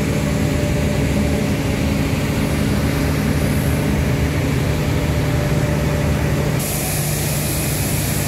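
Steady drone of heavy machinery: a constant low hum with a few steady tones under a hiss. The hiss gets brighter about two thirds of the way through.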